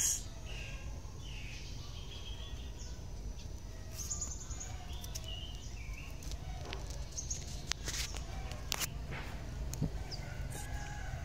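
Outdoor ambience: scattered short bird calls over a steady low rumble, with a few sharp ticks.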